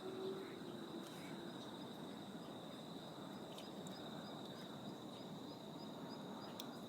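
Summer outdoor ambience: an insect drones steadily at a high pitch with faint regular pulses, over an even low background rumble. A faint low hum fades out about a second in.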